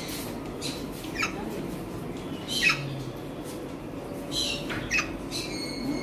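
Parrots squawking: a handful of short, shrill calls that sweep down in pitch, the loudest about two and a half seconds in, over a steady low hum.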